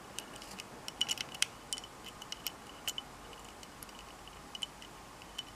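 Lock pick and tension wrench working the pins inside a budget pin-tumbler deadbolt: small, irregular metallic clicks and ticks, a quick cluster of them about a second in.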